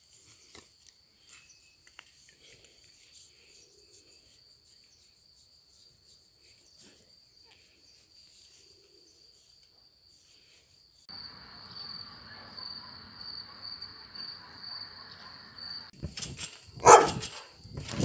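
An insect trilling steadily on one high pitch, with a dog barking loudly a couple of times near the end.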